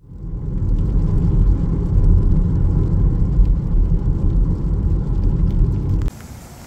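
Car driving on a wet road, heard from inside the cabin: a steady low rumble of engine and tyres that cuts off suddenly near the end.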